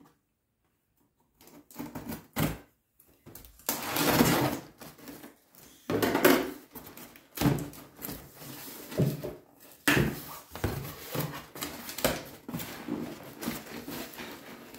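A cardboard shipping box being cut open with scissors and its flaps pulled back: irregular scraping, rustling and knocks, starting after about a second and a half of quiet.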